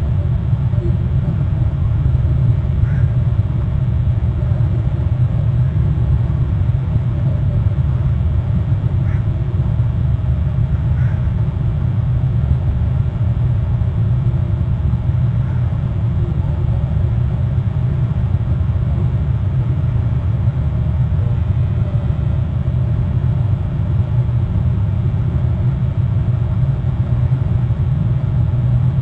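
Steady low rumble with a few faint, short, higher sounds scattered through it.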